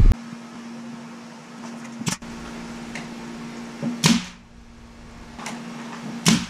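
Pneumatic nail gun firing into a wooden frame: three sharp shots about two seconds apart, the middle one loudest, each followed by a short hiss of air, over a steady low hum.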